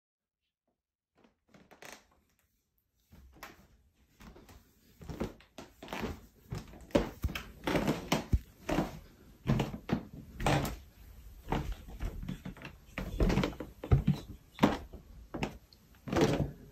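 A run of irregular knocks and thumps that starts faintly about a second in and becomes busier and louder.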